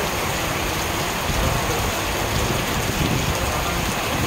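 Heavy rain pouring steadily and splashing on hard paving.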